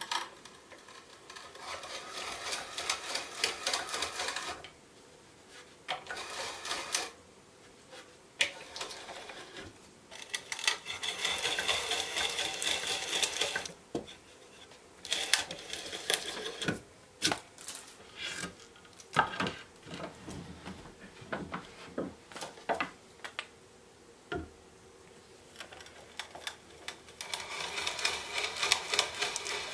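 Hand brace and auger bit boring through an air-dried pine board: rapid crackling and clicking as the bit cuts the wood. The clicking comes in stretches of a few seconds, with pauses and single knocks between them.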